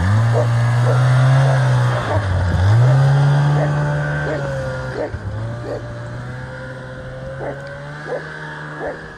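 Arctic Cat snowmobile engine revving up as it pulls away with two riders, easing off briefly about two seconds in, then picking up again and running steadily, fading as it drives off. A dog barks now and then.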